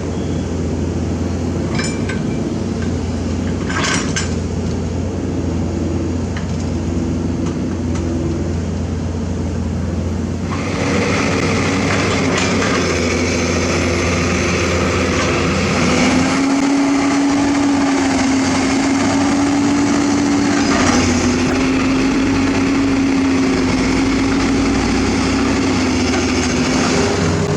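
Heavy diesel engine of construction machinery running steadily, with a couple of light clinks in the first few seconds. About ten seconds in it revs up and grows louder, and a few seconds later a steady higher tone comes in over it.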